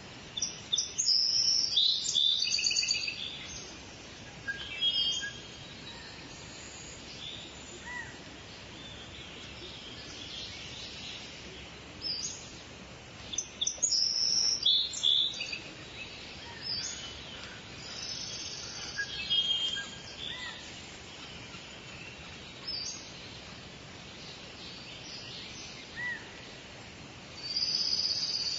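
Songbirds singing and chirping in repeated bouts of high, quick phrases, loudest near the start and again about halfway through, over a steady outdoor background hiss.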